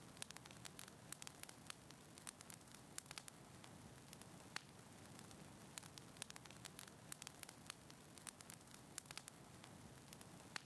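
Faint crackling of a wood fire in a fireplace: irregular sharp pops and snaps over a soft steady hiss.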